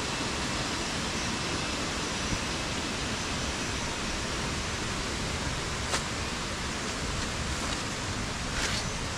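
Steady, even rushing noise of the forest surroundings. A single sharp click comes about six seconds in, and a brief higher scratch just before the end.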